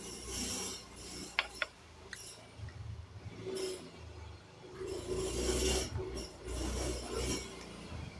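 Rustling and rasping of a paper food wrapper being handled, in irregular swells, with two sharp clicks about a second and a half in.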